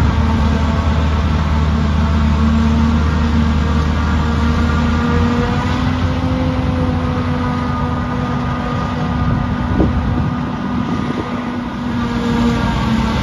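Forage harvester chopping maize with a tractor and trailer running alongside: a steady machine drone with several held tones. The deepest hum drops away about five seconds in.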